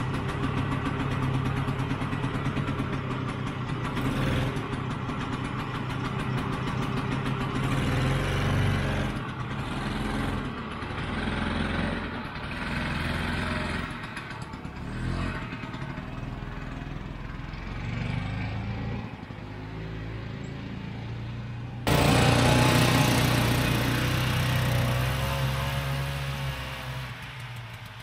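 Vintage 1967 Ski-Doo Olympic snowmobile's small single-cylinder two-stroke engine running, rising and falling in revs as the sled is ridden. The sound jumps suddenly louder about three-quarters of the way through, then fades near the end as the sled moves away.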